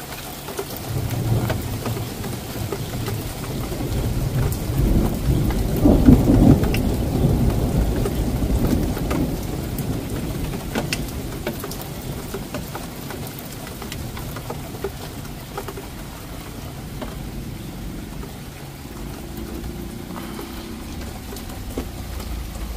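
A long roll of thunder builds from about a second in, is loudest about six seconds in, then rumbles away over several seconds. Steady rain falls throughout, with scattered drip ticks, and a new low rumble starts near the end.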